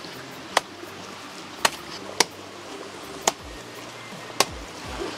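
A machete-like blade chopping into the soft, fibrous trunk of a banana plant, five strikes at uneven intervals about a second apart.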